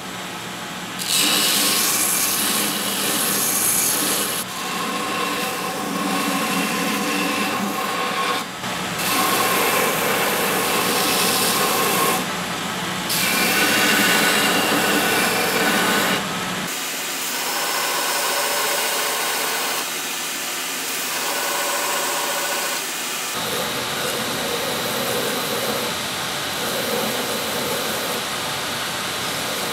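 Belt grinder running with its abrasive belt grinding a knife handle in repeated passes. The grinding sound swells and drops every few seconds as the piece is pressed on and lifted off, over the grinder's steady motor hum.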